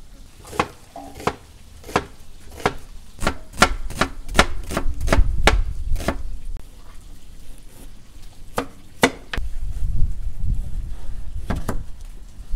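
Knife chopping food on a cutting board: separate chops at first, then a quicker run of them about three seconds in, with a low rumble underneath in places.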